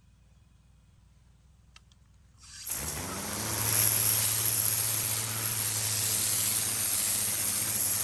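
Pressure washer spraying a concrete patio: a motor starts up about two and a half seconds in, its hum rising then holding steady, under a loud, steady hiss of the water jet.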